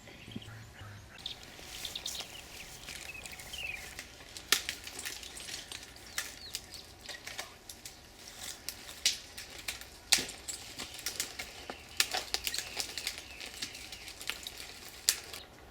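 Irregular rustling with many sharp clicks and cracks, the loudest about four and a half, nine, ten and twelve seconds in, and a few short chirping calls about three to four seconds in.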